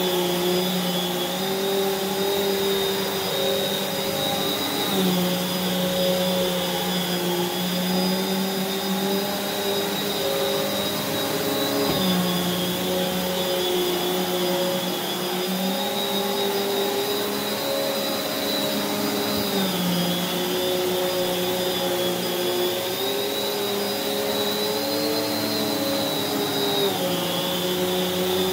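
Prolux X8 Elite backpack vacuum cleaner running continuously with its EBK360 power nozzle on carpet. It is a steady motor drone with a high whine, and its pitch dips and recovers slightly every several seconds.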